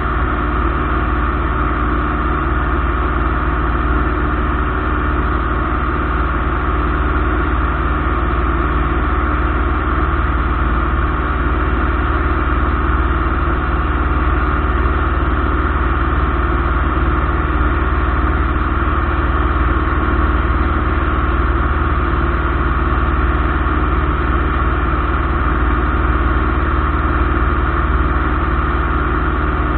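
Light aircraft piston engine and propeller running steadily in flight, a constant even drone.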